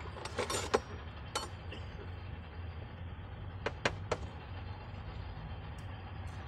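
Small metal clicks as the garter spring is worked out of a steering gear box oil seal with a pick tool: a few clicks in the first second or so, then three sharp clicks close together near the middle, over a steady low hum.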